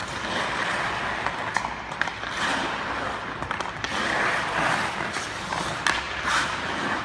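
Ice hockey skate blades scraping and carving across rink ice in surges through tight turns, with occasional sharp clicks of the stick blade on the puck.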